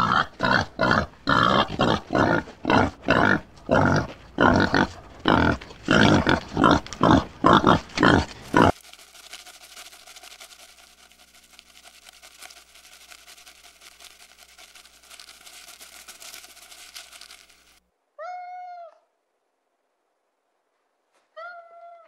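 An animal's loud, harsh calls in a fast, even series, about two or three a second, stopping suddenly about nine seconds in. A quiet stretch of faint background noise follows, then a cat meows twice near the end.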